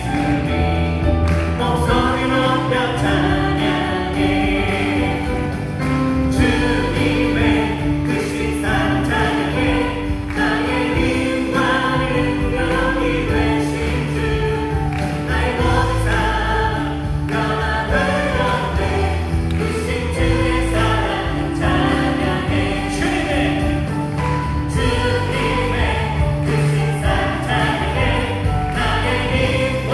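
A worship team sings a Korean praise song in chorus, led by a male singer, over a live band with acoustic guitar.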